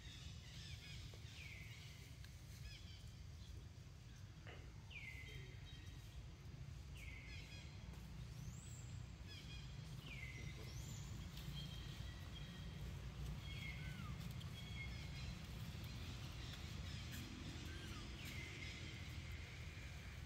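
Outdoor ambience: a steady low rumble with a high, whistled call that falls in pitch, repeated about six times at intervals of a few seconds, and one rising call near the middle.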